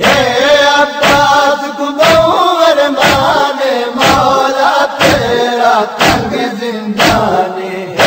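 Voices chanting a Punjabi nauha, a Shia lament, in a steady chant, over sharp beats about once a second.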